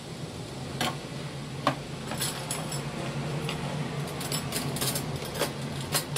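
A pot of water at a rolling boil, with a low steady hum underneath and scattered sharp clicks and light taps, several coming in a quick cluster past the middle.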